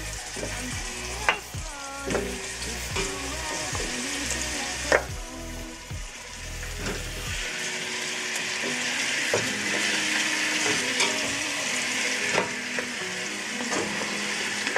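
Lamb bones sizzling in hot olive oil in a stainless steel pot as they are laid in one after another, searing to brown for a dark stock. The sizzle grows louder about halfway through as more bones go in, with a few sharp clicks of bone against the pot early on.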